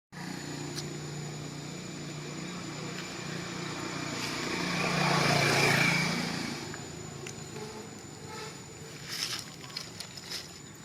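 A motor vehicle's engine passing by, its hum building to a peak about five to six seconds in and then fading away. A few light knocks follow near the end.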